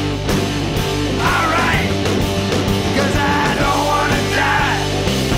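Loud rock music with drums.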